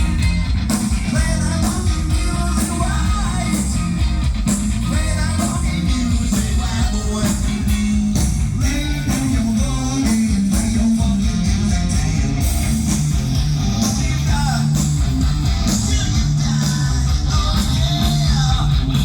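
Live rock band playing a song: guitar and drums with a singer.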